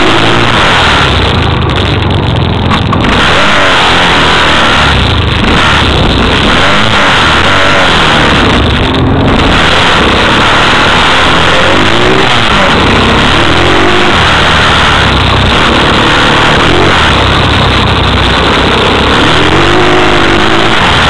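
ATV engine running loud under way, its pitch rising and falling again and again as the throttle is opened and eased off. It is picked up by a microphone mounted right by the wheel and suspension, so there is dense rumble and noise under the engine.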